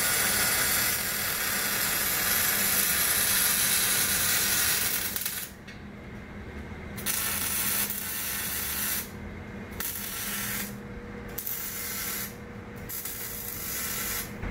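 A shop power tool working on the car's exhaust pipe, making a hissing noise. It runs for about five seconds, stops, then starts and stops again in four shorter bursts.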